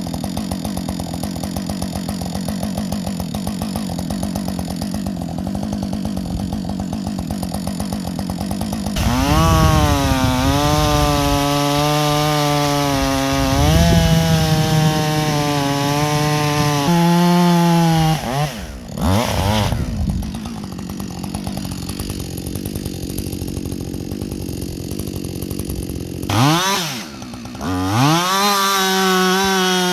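Chainsaw running. About nine seconds in it opens to full throttle and works hard, its pitch sagging and recovering as the chain cuts wood. It drops off briefly twice, around the middle and near the end, then revs back up.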